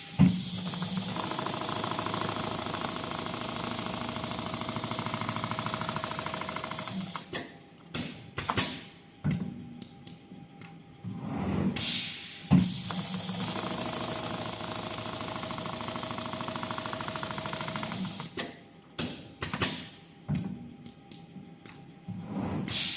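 Rotating-head computerized sewing machine stitching at speed in two runs of about six seconds each, with a high whine over a fast even stitch rhythm. Between the runs it stops for several seconds of irregular clicks and knocks.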